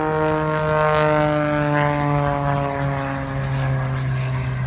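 Propeller engine of a single-engine aerobatic plane running at high power overhead, its pitch falling slowly as the plane passes.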